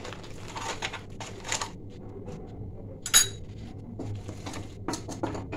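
Metal spoon and wooden spatula knocking and scraping against an aluminium kadai as the liquid in it is stirred. One sharp, ringing metal clink about three seconds in.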